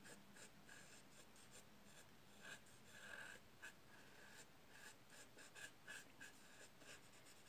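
Faint, quick strokes of a paper blending stump rubbing soft pastel into rough drawing paper, about three a second, as the pastel is blended along an edge.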